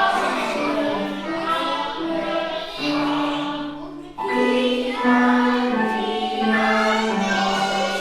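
A group of children singing a song together in held notes, with a short pause between phrases about four seconds in.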